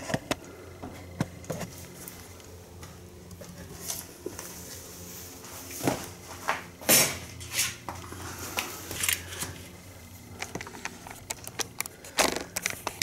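Scattered clinks and knocks of metal parts being handled on a workbench, with several louder knocks in the second half, over a faint low steady hum.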